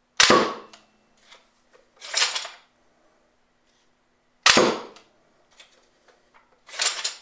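Homemade air gun firing twice, about four seconds apart. Each shot is a sharp pop, followed about two seconds later by a shorter, softer noisy burst.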